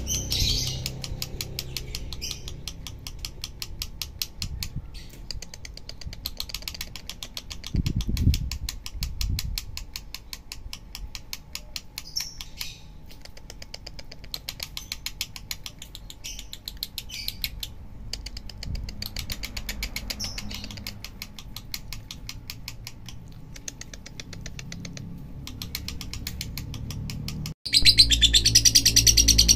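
Lovebird chattering: a fast, even run of clicking chatter broken by short high chirps, becoming much louder near the end.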